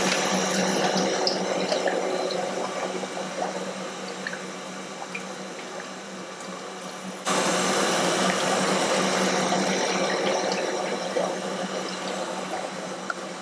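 Used motor oil running from a sampling port on the engine into a plastic oil-analysis sample bottle, with a steady hum under it. The flow tapers off, then starts abruptly again about seven seconds in and tapers once more.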